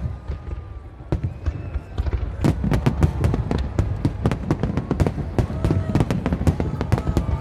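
Fireworks display going off: scattered bangs at first, then a rapid run of many sharp bangs and crackles through most of the second half, over a low rumble, with people's voices faintly underneath.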